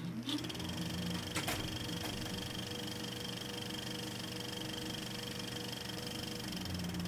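Steady machine-like whirring hum made of several held tones, with a sharp click about one and a half seconds in.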